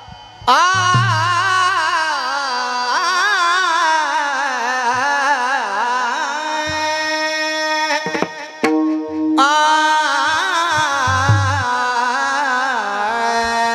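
A male singer sings a Varkari kirtan chal melody in a high, heavily ornamented voice, accompanied by a few deep mridang (pakhawaj) strokes. The voice comes in about half a second in and breaks off briefly a little past halfway.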